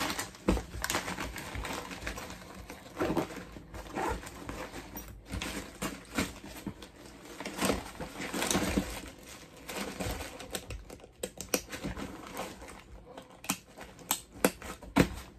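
Medical supplies being packed back into a nylon EMS trauma bag: plastic-wrapped items rustling and crinkling against the fabric, with irregular clicks and knocks. Near the end there are several sharper clicks as the bag's strap buckles are handled.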